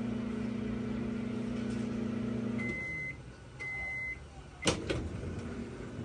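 ZLINE drawer microwave running with a steady magnetron hum, the sign of a bad magnetron that is not heating. The hum cuts off about two and a half seconds in, two beeps mark the end of the cycle, and a click follows as the drawer is opened.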